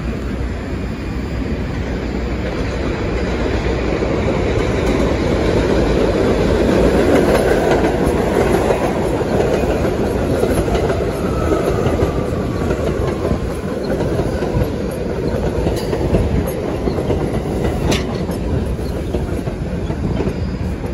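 R62A subway cars of a New York City 1 train running on the elevated steel structure, a continuous heavy rolling rumble that swells to its loudest about seven seconds in and then eases.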